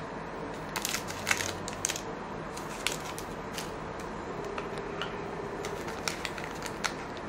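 Wrapper of a 2011-12 Upper Deck SP Authentic hockey card pack being torn open and crinkled by hand. There is a cluster of sharp crackles about a second in, then scattered crinkles.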